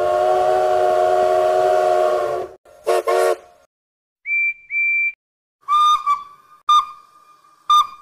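Steam locomotive whistles. The first is South Simcoe Railway #136's chime whistle: a long blast of several notes sounding together, lasting about two and a half seconds, then two short blasts. After a pause, SNCF 231K8's whistle gives two short high-pitched toots, followed by a run of short, lower toots about once a second.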